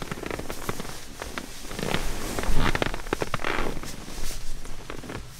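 Nylon-shelled down sleeping bag rustling and crackling close up as a person shifts and rolls around inside it, with a few louder swishes partway through.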